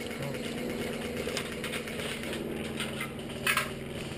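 Dry leaves and twigs crackling in quick, irregular clicks as a player moves through the brush, with one sharp snap about three and a half seconds in. A steady low hum runs underneath.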